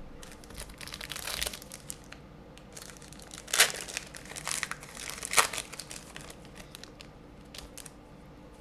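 Crinkling of a trading card pack's wrapper being torn open and handled, with two sharp, louder crackles about three and a half and five and a half seconds in.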